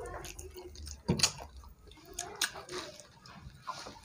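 Close-up eating sounds: wet chewing and lip-smacking on chicken curry and rice eaten by hand, with scattered small clicks and squelches, the loudest about a second in.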